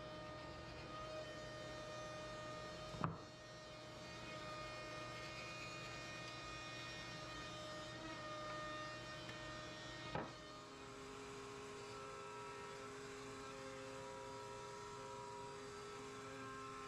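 Faint background music of soft held tones, changing to a new chord about ten seconds in. Two sharp clicks, about three and ten seconds in.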